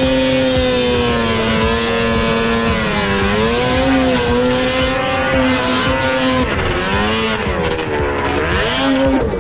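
Snowmobile engine running at high revs, its pitch dipping and climbing again several times as the throttle is eased and opened.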